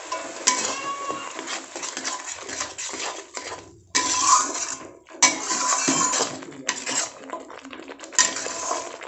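A metal khunti (flat spatula) scraping and clinking against a metal kadai as it stirs tomato paste into frying masala. The strokes are irregular, with brief pauses about four and five seconds in.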